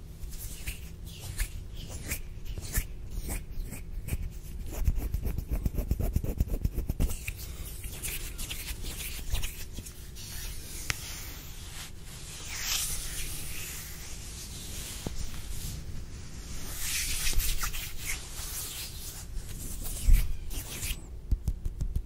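Crispy ASMR hand sounds close to a microphone: fingers clicking and rubbing together in quick, dense runs of crisp clicks in the first several seconds, then longer dry swishing rubs near the middle and again later, with a few soft low thumps.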